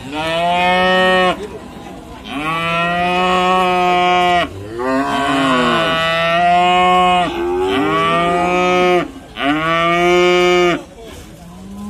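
Simmental calf mooing loudly over and over: five long, steady-pitched calls, each lasting one to two seconds, with short pauses between them.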